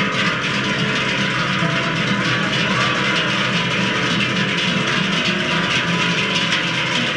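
A herd's cowbells, Swiss Treicheln and cast bells, clanging together in a dense, continuous jangle of many pitches as the cows walk.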